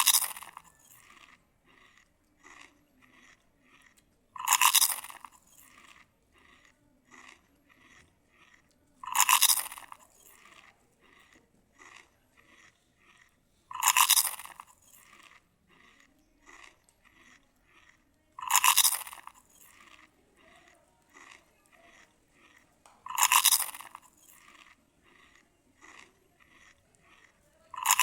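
Close-miked eating: a loud, crisp crunch about every four and a half to five seconds as crunchy food is bitten, with soft chewing clicks in between.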